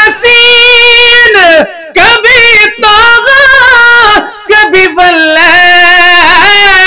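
A man singing a naat in a high register, holding long wordless notes and ornamenting them with wavering runs, with two short pauses for breath.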